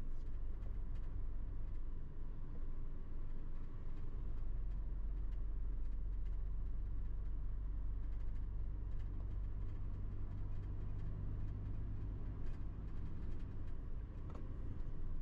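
Mercedes Actros truck heard from inside its cab while driving: a steady low diesel engine drone with road noise and a few light scattered clicks.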